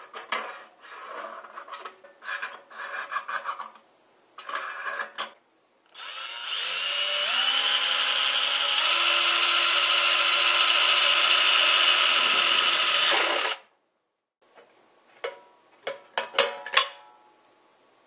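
Cordless drill running for about seven seconds as it drills the air-inlet hole through the side of a thin steel can, its motor pitch rising as it spins up. It is preceded by scratchy scraping as the hole is marked out on the metal, and followed by a few sharp metallic clicks as the cut-out is worked loose with pliers.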